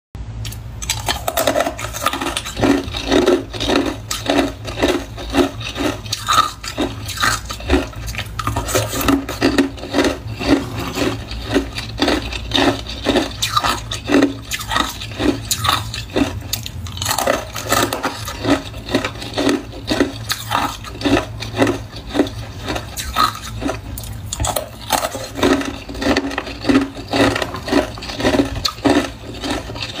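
Close-miked crunching and chewing of frozen cola ice bars: a steady run of crisp crunches, about two or three a second, with a few short pauses.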